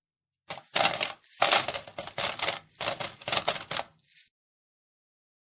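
A metal utensil clinking and scraping against cookware in four quick clattering bursts over about four seconds.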